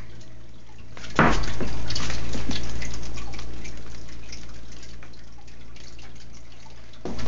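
Bernese mountain dog licking and nibbling another dog's face: rapid wet licking, smacking and slurping, louder from about a second in.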